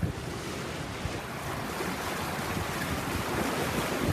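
Sea water rushing along a sailboat's hull and churning in its foaming wake in rough, breaking seas: a steady hiss, mixed with wind on the microphone.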